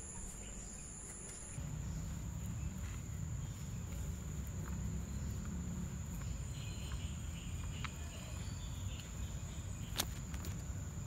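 A steady high-pitched insect buzz, with faint soft sounds of hands mixing and squeezing grated-coconut dough in a clay pot, and one sharp click near the end.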